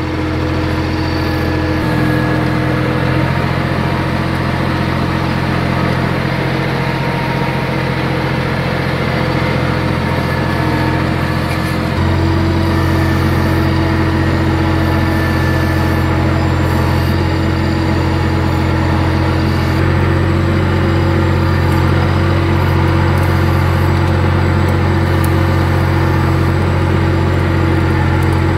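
Farm tractor engine running steadily as the tractor is driven, its note stepping up louder about two seconds in and again at about twelve seconds.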